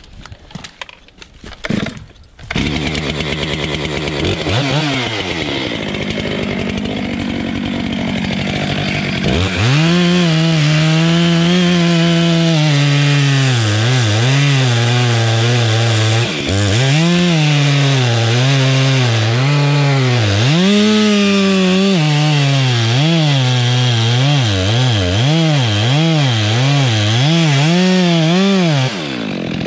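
Two-stroke chainsaw, a Stihl: a few clicks, then the engine runs at a low steady speed from about two seconds in. About a third of the way through it is revved hard and runs at full speed, its pitch dipping and recovering again and again, before dropping back to a lower steady speed just before the end.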